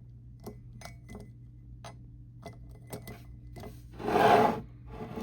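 A plastic toy figure handled and set on top of a ceramic coffee mug: scattered light clicks and taps, then a louder scrape of plastic against the mug lasting about half a second, about four seconds in.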